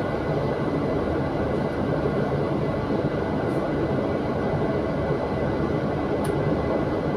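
Double-decker bus idling while stationary, heard inside the upper deck: a steady low rumble with a faint steady high whine.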